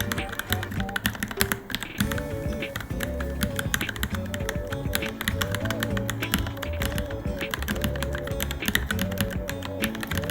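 Fast, continuous typing on a Varmilo Minilo mechanical keyboard, many keystrokes a second, over background music with a repeating melody.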